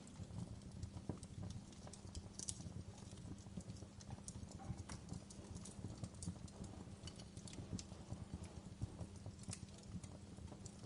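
Wood fire crackling: irregular sharp pops and snaps over a soft, steady low rumble of flames.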